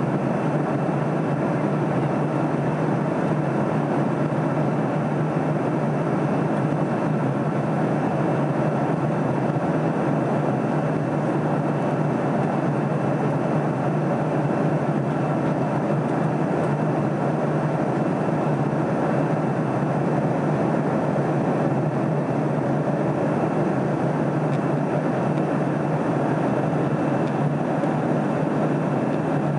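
Steady drone of the jet engines and rushing air heard inside an airliner's passenger cabin in flight, with a constant low hum and a faint high steady tone.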